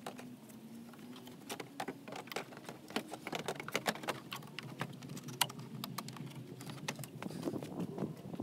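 Irregular plastic clicks and taps as a VW Passat B7 headlight assembly is handled and fitted back into the car's front end.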